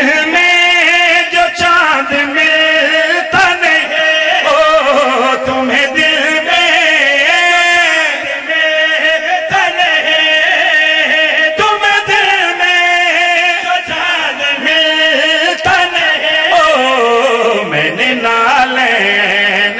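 Several men singing a devotional qaseeda together into microphones, amplified: a slow chant with long, wavering held notes.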